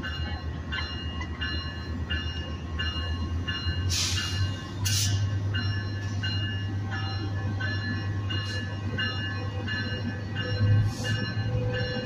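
Tier 4 F125 diesel locomotive pulling slowly into a station, its engine rumbling low and its bell ringing steadily about twice a second. Short hisses come about four and five seconds in.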